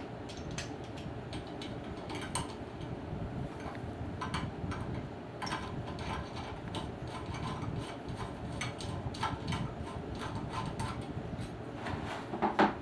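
Irregular small metal clicks and scrapes of a stainless steel glass clamp being fastened to a post with its M8 socket head screw, with a louder pair of clicks near the end.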